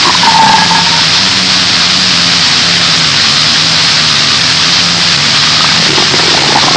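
Harsh noise music: a loud, dense wall of distorted static with a low steady drone beneath it, and a short pitched squeal in the first second.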